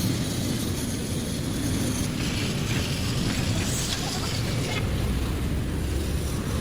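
Steady low mechanical rumble of running machinery, with a faint hiss and clatter above it, getting a little heavier in the low end about five seconds in.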